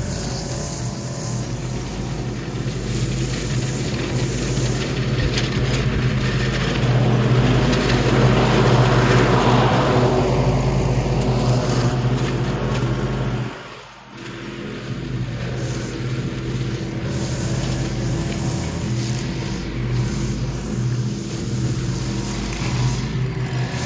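A Stihl BR 800 two-stroke backpack leaf blower and a ZT1 50 zero-turn mower mulching leaves, running together as a steady engine drone with a rushing air hiss. It is loudest around the middle as the mower passes close, and dips sharply for a moment a little past halfway.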